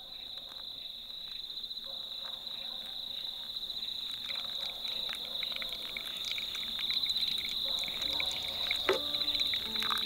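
Insects trill steadily at one high pitch while water trickles from a gooseneck kettle onto coffee grounds in a pour-over dripper. There is a single light click near the end.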